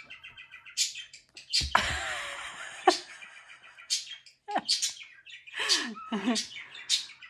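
Pet budgerigar chirping and chattering in short high calls and warbling sweeps, with a stretch of rustling about two seconds in that ends in a sharp click.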